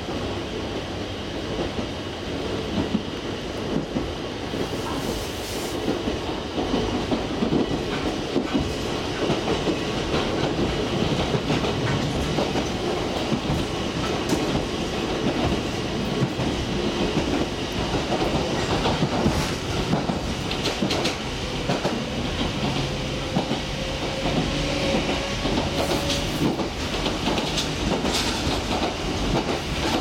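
Electric commuter train running along the track, heard from inside the carriage: a steady rumble of wheels on rail with the clickety-clack of rail joints. A faint whine rises slowly in pitch in the last third.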